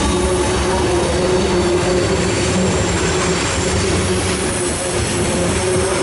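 Loaded coal hopper cars of a freight train rolling past close by: a steady, loud rumble of steel wheels on rail, with a held tone of wheel squeal over it.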